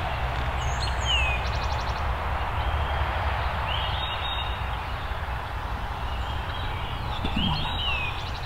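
Songbirds singing short, high phrases, a few near the start and again near the end, over a steady rushing background noise with a low rumble underneath.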